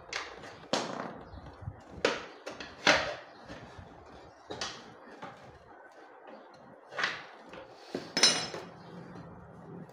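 Metal hand tools, a T-handle socket wrench and a screwdriver, knocking and clinking against a Honda CD70 motorcycle's air filter housing and frame as they are fitted in place. About six sharp knocks come at uneven intervals, and the loudest, near the end, rings briefly.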